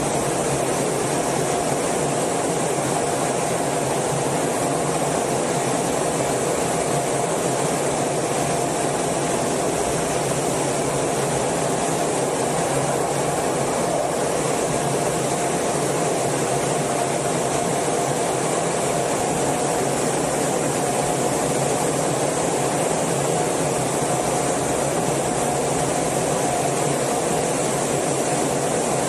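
Steady cockpit noise of an F/A-18 jet in flight, heard inside the canopy: engine and air rush as an even, unchanging noise with a steady mid-pitched tone over it.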